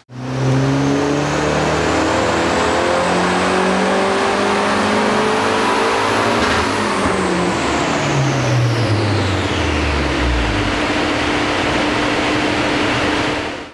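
Mazda 6 MPS's 2.3-litre turbocharged four-cylinder engine at full throttle on a chassis dyno, revs climbing steadily through the gears' range for about six seconds with a high whine rising alongside, then backing off and winding down over the next few seconds.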